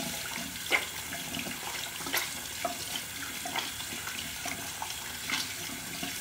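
Tap running steadily into a sink while hands are rinsed and rubbed under the water, with a few brief splashes.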